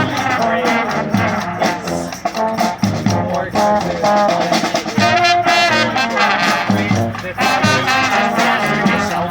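Street brass band playing an instrumental passage: trumpets and trombones with saxophones over a steady low beat.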